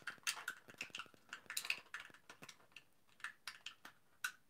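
Light, irregular clicks and crinkles of a thin clear plastic blister tray as fingers pry a small part out of it.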